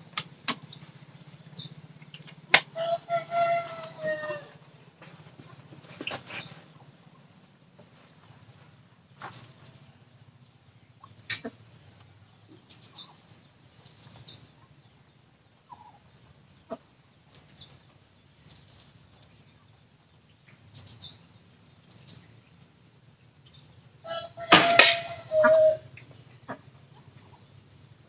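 Diana Outlaw Gen2 .177 PCP air rifle fired twice, a sharp crack about two seconds in and another near the end, each followed by a short wavering tone. Light clicks come in between.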